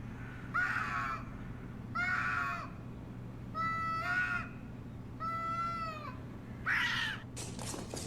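A cat meowing over and over: five drawn-out meows about a second and a half apart.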